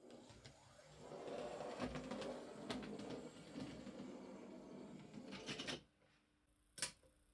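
A 00 gauge model locomotive's small electric motor and wheels running along the track, with clicks as the wheels cross rail joints and points. It stops about two-thirds of the way through, followed a second later by a single sharp click.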